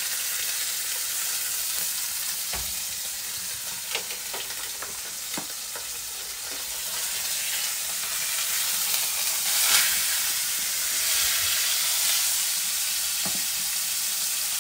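Meat frying in a pan, a steady sizzling hiss that grows a little louder past the middle, with a few light clicks of a utensil against the pan.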